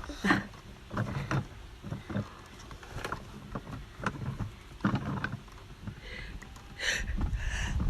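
Faint, scattered sniffs and breaths from someone tickling the inside of their nose with a grass stem, over a steady low rumble on the phone microphone. The breathing swells in the last second, the build-up to a sneeze.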